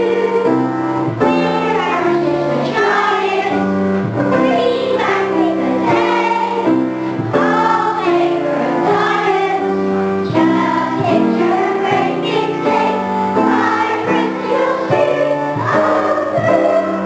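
Children's chorus singing together in a large hall, many young voices holding sustained notes.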